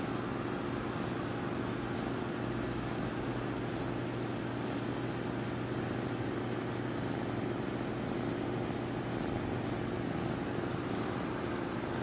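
Sleeping kitten purring: a steady low rumble, easily taken for snoring, with a soft breathy pulse about once a second.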